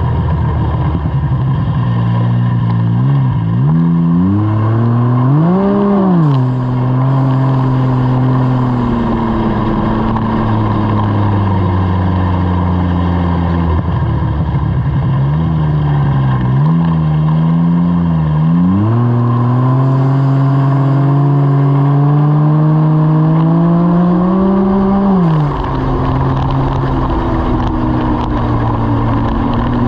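Ski-Doo 900 turbo snowmobile's three-cylinder four-stroke engine, heard from the rider's seat, pulling along a trail as the throttle is worked: the engine note climbs and falls several times, with a long climb that drops off sharply late on. Steady rush of wind and track noise underneath.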